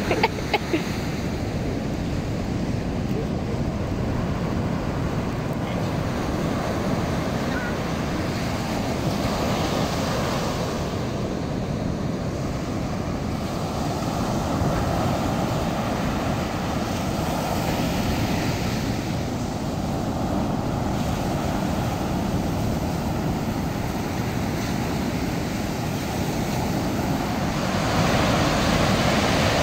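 Ocean surf breaking and washing up a sandy beach, a steady rushing noise that grows a little louder near the end, with wind on the microphone.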